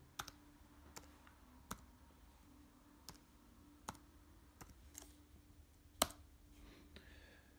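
Faint, irregularly spaced clicks of a computer keyboard and mouse while a file name is typed in, about eight in all, the loudest about six seconds in, over a faint low hum.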